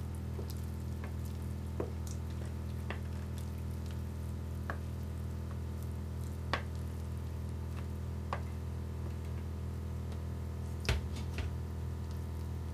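A metal utensil scraping and tapping as thick mashed plantain dough is scooped from a metal bowl and spread in a baking pan. It makes scattered soft clicks and knocks, with a sharper pair of knocks near the end, over a steady low hum.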